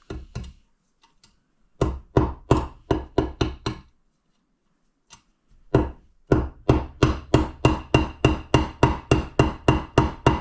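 Hammer tapping small dowel pins into an engine case half: a run of about eight quick taps, a pause, then a longer steady run of about four taps a second with a faint ringing tone.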